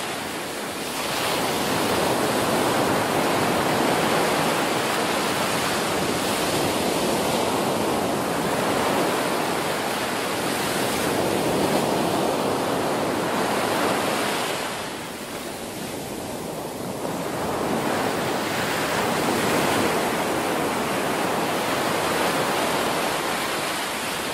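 Ocean surf breaking and washing up on a sandy beach, a steady rush that swells and ebbs, dipping for a couple of seconds about fifteen seconds in.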